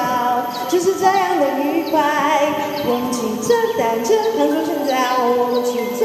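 A woman singing a Chinese-language song over a melodic backing track, her voice wavering with vibrato about two seconds in, with short high chirps sounding behind the music.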